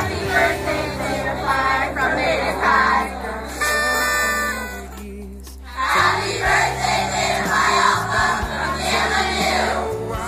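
A group of women singing together over music, dropping to a brief lull about five seconds in, then a larger chorus of voices singing.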